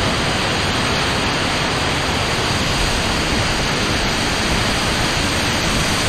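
Steady rush of a waterfall pouring down stepped rock ledges, heard up close.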